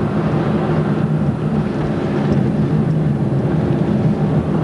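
Peugeot 106 driving under throttle, heard from inside the cabin: a steady engine drone over tyre and road noise.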